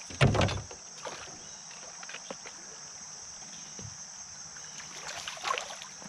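A hooked smallmouth bass splashing at the surface as it is brought to a landing net beside a kayak: a short splash about a quarter second in and more splashing near the end. A steady high insect buzz runs underneath.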